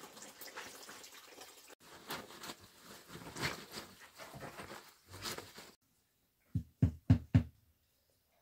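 A pig eating wet mash: irregular chomping and slurping. It cuts off abruptly about two-thirds through, followed by four or five dull thumps in quick succession.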